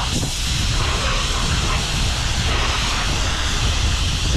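High-pressure spray wand at a self-service car wash, spraying steadily: a loud, even hiss over a low rumble.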